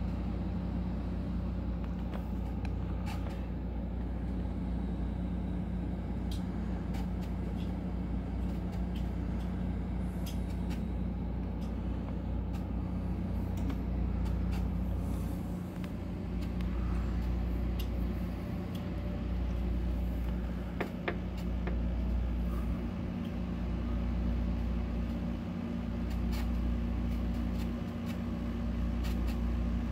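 Ceiling fan running with a steady low hum, with scattered faint clicks over it.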